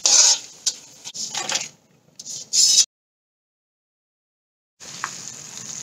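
A metal slotted spatula scrapes and clinks against a steel wok while fried anchovies are scooped out of the oil. This is followed by about two seconds of dead silence at an edit, then a low, steady sizzle of hot oil near the end.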